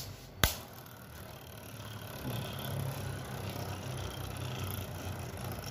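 Two Beyblade Burst tops spinning in a plastic stadium: two sharp clacks in the first half second, then a steady low whir of the spinning tops that grows a little louder about two seconds in.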